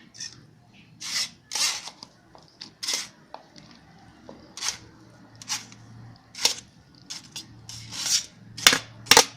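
A kitchen utensil scraping and knocking against a strainer and bowl as leftover ginger pulp is scooped out: many short, irregular scrapes and clinks, the loudest near the end.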